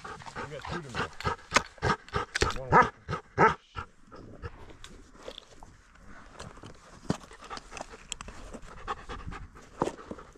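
Hunting dog panting, loudest over the first few seconds and then fainter.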